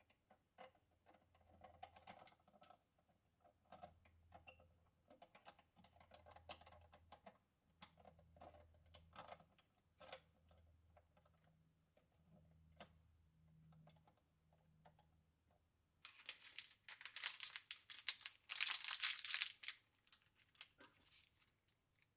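Light, scattered clicks and taps of Noctua's metal mounting frames being handled and fitted onto threaded mounting stems over a motherboard. About 16 seconds in comes a louder crinkling of a clear plastic parts bag of knurled nuts, lasting about four seconds.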